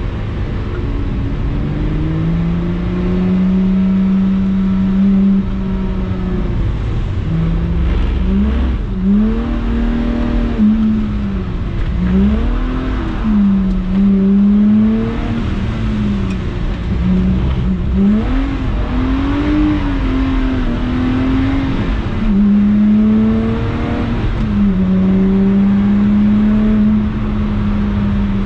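Lotus Exige 350 Sport's supercharged 3.5-litre V6 driven hard on track, its note rising and falling over and over as the throttle is opened and closed, with several sudden drops in pitch.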